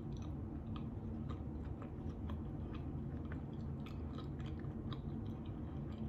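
A person chewing a mouthful of chicken and cheese quesadilla with lips closed: soft, irregular, wet mouth clicks over a steady low background hum.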